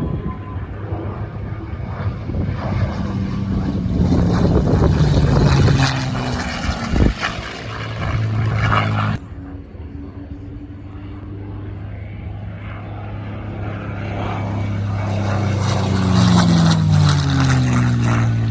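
Propeller airplane engine flying past, building up and falling away, with a sudden cut about 9 s in; near the end it passes close and its pitch falls as it goes by.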